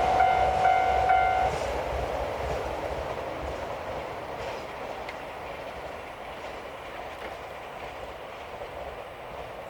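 KiHa 261 series diesel express train passing, its horn sounding in short broken blasts for about the first second and a half. The train's running noise then fades steadily as it moves away.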